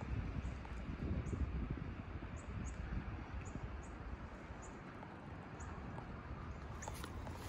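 Short, high chirps of a small bird, repeating roughly once a second over a steady low outdoor rumble.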